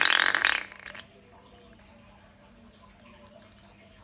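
Air forced out through a balloon's neck in one loud, buzzing, fart-like burst lasting under a second, followed by faint room noise with a low steady hum.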